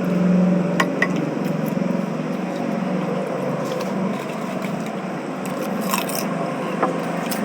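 A few sharp clicks and taps scattered over a steady low background hum.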